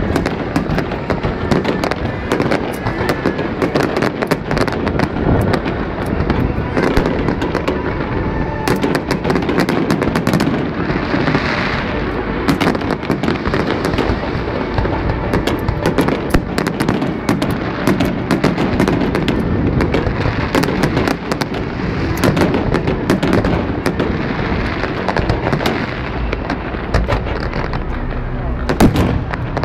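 Aerial fireworks display: many sharp bangs of bursting shells in quick succession over a steady low rumble.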